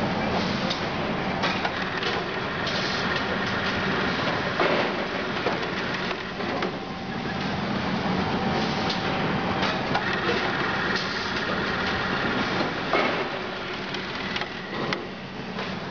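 Automatic sack-filling and bag-handling machinery running: a steady machine hum with a low drone, broken by a few sharp clacks and knocks.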